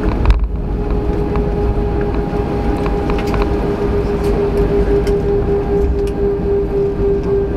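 Cabin noise of an Airbus A319 rolling out on the runway just after touchdown: a heavy steady rumble of engines and wheels with a steady whine over it. A single jolt about a third of a second in.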